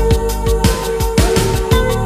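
Electronic music with a steady drum beat and held synth notes, no singing.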